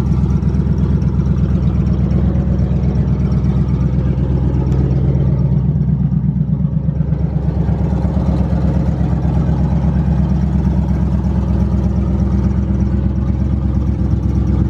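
1992 Camaro RS engine idling steadily with an even low pulse.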